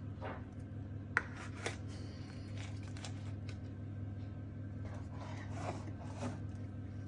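Spatula and wooden spoon scraping and rubbing thick, sticky paste in a nonstick pan and scooping it into a plastic tub, with two sharp clicks a little over a second in. A steady low hum runs underneath.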